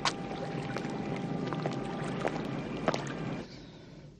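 Steady outdoor ambience in a film soundtrack, a low rumbling noise bed with a faint hum and a few sharp clicks, dropping down about three and a half seconds in.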